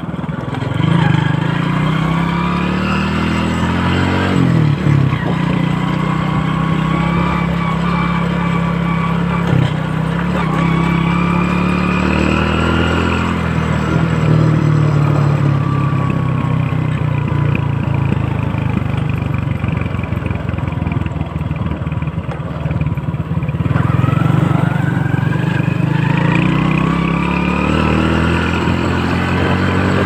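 Small motorcycle engine running while under way, heard from the rider's seat. Its pitch climbs as it picks up speed and drops back, several times over.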